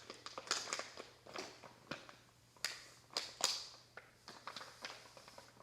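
Crinkly plastic packaging being handled and torn open, crackling and rustling in irregular bursts: a Cutetitos toy's wrapper being opened.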